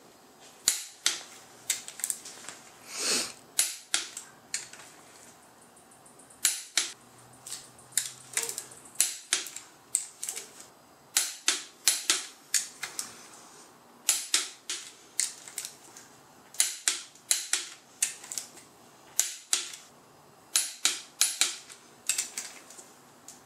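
Torque wrench ratcheting on the bolts of a BMW S52 engine's crankshaft and rod assembly as they are re-torqued: short runs of sharp metallic clicks, several a second, with brief pauses between bolts.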